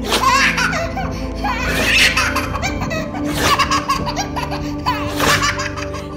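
Baby laughing in repeated peals of belly laughter, about four bursts over several seconds, over background music.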